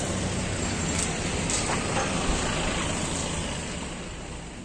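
Roaring noise of a large building fire, with a few sharp crackles and pops, over a steady low hum; it fades out near the end.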